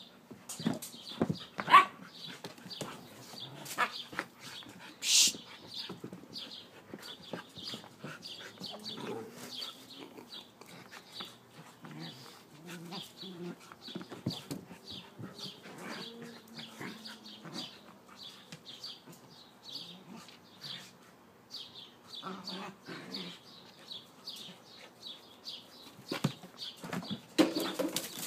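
Huskies play-fighting: scuffling and knocks with low play growls and grumbles from the dogs. A high short chirp repeats steadily in the background.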